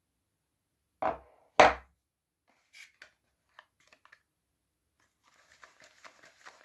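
Soap bars and their packaging being handled: two sharp knocks about half a second apart, then a few light clicks and, near the end, a quick run of light crinkly taps.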